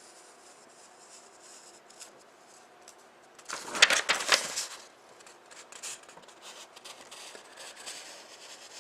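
Paper handling: a short burst of rustling and sharp clicks about three and a half seconds in, with a few faint ticks later, over quiet room tone.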